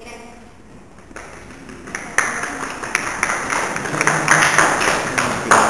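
A group of people clapping: applause starting about a second in and growing steadily louder.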